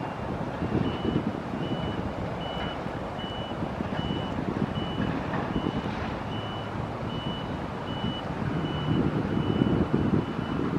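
Electronic warning alarm beeping steadily, a single high tone at about two beeps a second, over a low rumble and wind noise.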